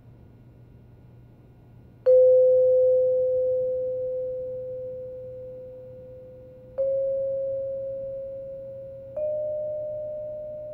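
Three bell-like struck notes of film score music, each a little higher than the last, ringing on and slowly fading: the first about two seconds in, the others near seven and nine seconds.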